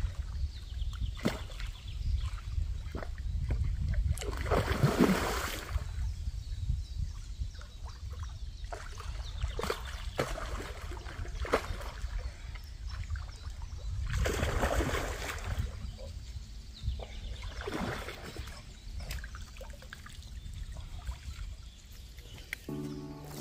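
A hooked carp thrashing in shallow water at the bank, splashing in two louder bursts, about five seconds in and again about fourteen seconds in, with smaller splashes and ticks between, over a low steady rumble.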